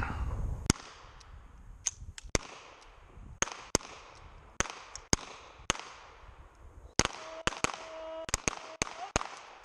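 Revolver fire on a match firing line: the nearest shots come from a Colt Python revolver, mixed with the shots of other revolvers along the line. There are more than a dozen sharp reports at uneven spacing, some close together.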